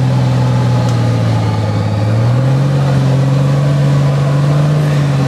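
Nissan Patrol 4x4's engine running hard under load as it climbs through deep mud. The revs sag about two seconds in, then pick up again and hold steady.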